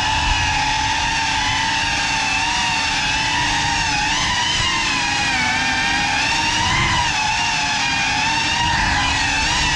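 Brushless motors and propellers of a CineLog35 cinewhoop drone, a steady high whine whose pitch wavers and swoops up and down as the throttle changes in flight.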